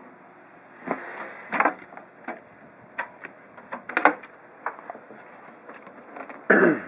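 Irregular clicks and knocks of a desktop computer's case and parts being handled, about a dozen, spaced unevenly.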